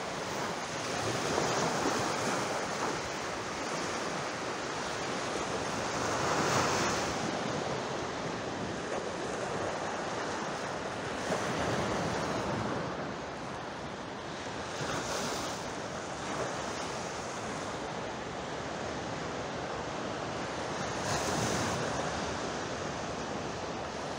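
Sea waves washing in, the surf noise swelling and easing every few seconds.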